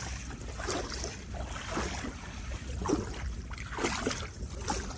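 Footsteps wading through shallow muddy water, a slosh about once a second, over a low wind rumble on the microphone.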